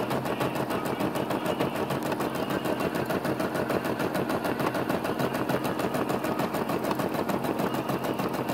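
Brother SE425 embroidery machine stitching out a design, its needle running in a fast, even rhythm of many strokes a second.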